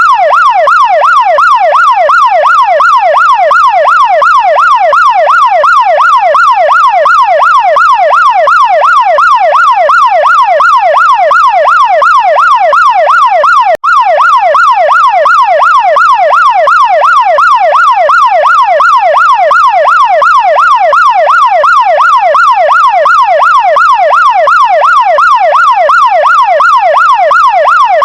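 Chinese fire truck siren in a fast yelp, its pitch sweeping up and down about twice a second without let-up. There is a momentary break about halfway through.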